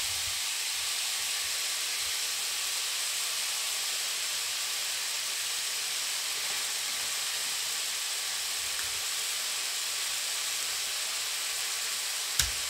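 Veal strips sizzling steadily in hot oil in a frying pan. A single sharp knock near the end.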